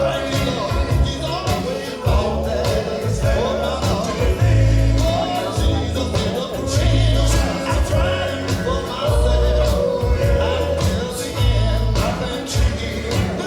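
Gospel music between sung lines: a band plays a steady bass line with drums and cymbals under sustained, wordless harmony singing.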